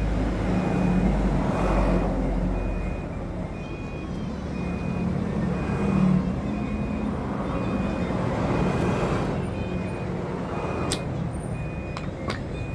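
A motor vehicle's engine running with a low rumble that swells and eases, while a reversing alarm beeps steadily about twice a second.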